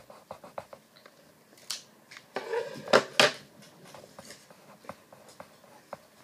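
Pencil scratching on notebook paper in short quick strokes as eyelashes are drawn. Two louder, sharp sounds come about three seconds in.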